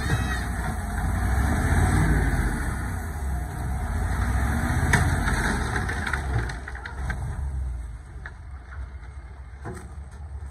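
Dump truck's diesel engine running steadily under load while the hydraulic hoist tips the bed, easing off about eight seconds in. A few sharp knocks sound as the soil load slides out.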